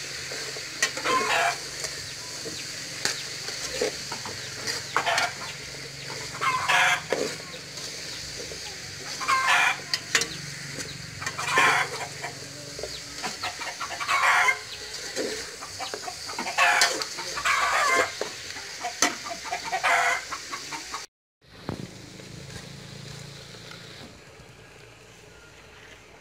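Chickens clucking and calling, a short call every couple of seconds, over a steady high hiss. The sound cuts out abruptly about twenty seconds in and comes back quieter.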